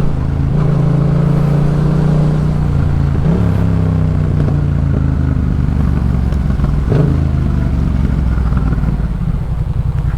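Yamaha MT-07's parallel-twin engine running under way through a Jeskap K4 full aftermarket exhaust, at a sporty but moderate volume. The engine note steps down in pitch about three seconds in, with a brief sharp blip near seven seconds.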